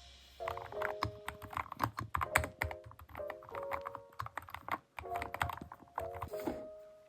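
Keys clicking rapidly and irregularly as a computer keyboard is typed on, over background music with held chords.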